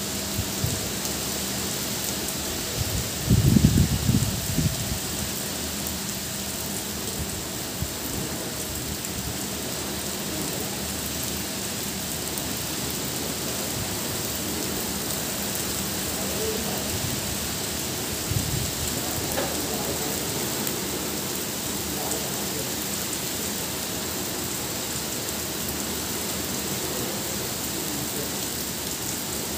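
Heavy rain falling steadily on foliage and paving, with a few brief low rumbles; the loudest comes about three to four seconds in.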